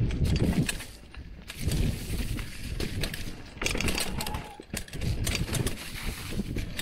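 Mountain bike riding down a snowy dirt trail: tyres rolling over the rough ground and the bike rattling over bumps with many sharp clicks, with uneven wind rumble on the camera microphone.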